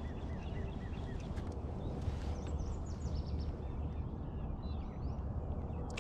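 Small birds chirping, a quick run of short repeated chirps near the start and higher twittering calls through the middle, over a steady low outdoor rumble of wind and water.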